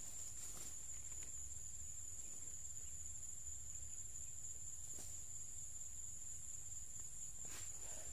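Steady high-pitched insect chorus, with a low rumble underneath and a few faint knocks.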